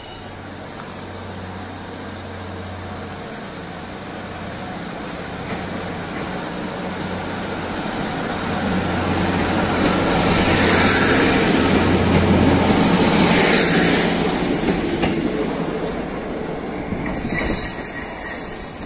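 Diesel trains at a station platform: a Class 150 diesel multiple unit's underfloor engine running with a steady low hum as it moves along the platform, then a Class 221 Voyager's diesel-electric engines and wheels growing louder about halfway through, peaking in a broad rush of noise and easing off near the end.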